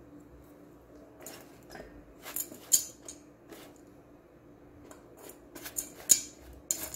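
Plastic spatula scraping and stirring chopped, not yet melted chocolate against the nonstick inner pot of an electric rice cooker: irregular scrapes and clicks, with two sharper knocks about 2.7 s and 6 s in, over a faint steady hum.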